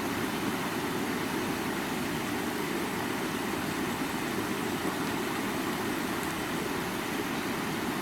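Stream water running over rocks, a steady rushing noise.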